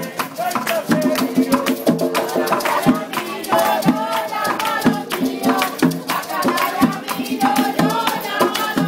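Music with a singing voice over fast, dense percussion of rattles and drums.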